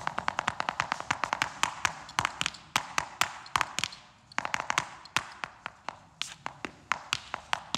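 Flamenco zapateado: the heels and toes of flamenco shoes striking a hard stage floor in quick runs of sharp taps. The rhythm slows and stops briefly about four seconds in, then picks up again.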